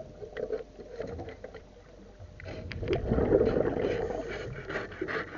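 Underwater sound during hull cleaning: scattered clicks and scraping against the hull, and a rushing swell of scuba regulator exhaust bubbles about two and a half seconds in.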